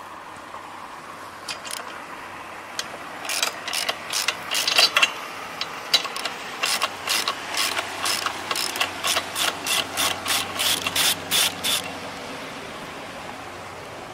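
Hand ratchet with a socket clicking in quick runs as it backs a bolt out of the cast aluminium cover of a boat lift's motor housing. A passing boat's engine drones low underneath.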